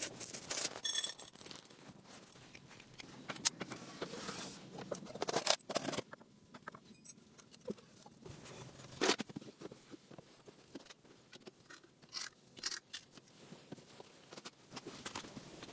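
Irregular small clicks, knocks and scrapes of objects being handled, with a few louder knocks scattered through.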